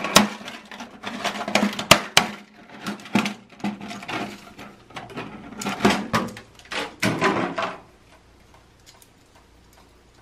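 Stiff plastic blister packaging crackling and clicking as it is handled and opened, a dense run of sharp clicks and crinkles that stops about eight seconds in.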